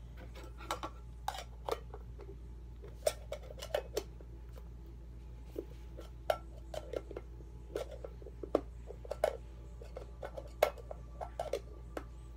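Metal Pokémon Quick Ball tin clinking and clicking as it is handled, with irregular light taps several times a second.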